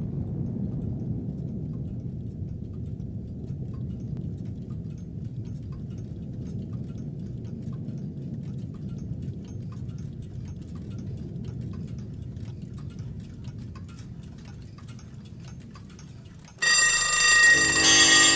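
Faint ticking over a low steady rumble, then about sixteen seconds in, loud ringing bell tones start suddenly.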